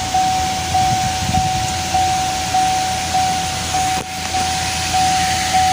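Electronic warning chime repeating about every 0.6 s, each ding fading before the next, over a steady hiss of noise.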